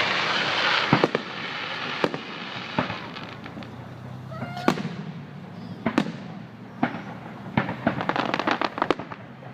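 Fireworks going off: a loud crackling hiss in the first second, then scattered sharp bangs, and a rapid run of pops near the end.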